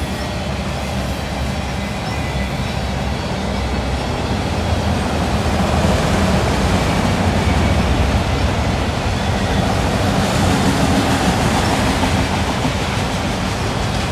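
Freight train of autorack cars rolling past: a steady noise of steel wheels on the rails, swelling a little in the middle.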